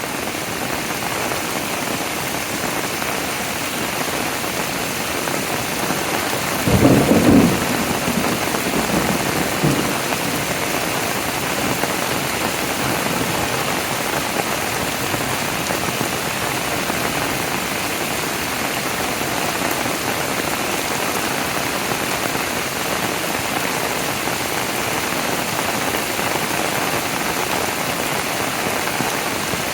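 Heavy rain falling steadily, an even hiss of water striking surfaces. A brief, louder low sound comes about seven seconds in, and a fainter one near ten seconds.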